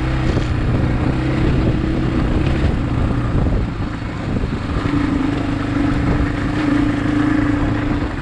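Motorcycle engine running steadily while riding, its note dipping a little in loudness about four seconds in.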